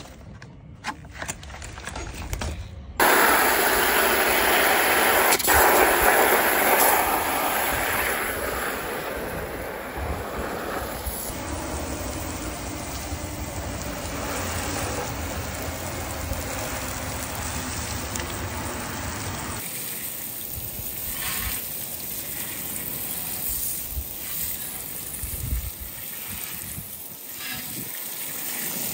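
Garden hose with a handheld spray-gun nozzle hissing as its jet of water hits a car's paintwork and then an alloy wheel. After a few clicks, the spray comes on suddenly about three seconds in, is loudest for the first few seconds, then carries on steadier.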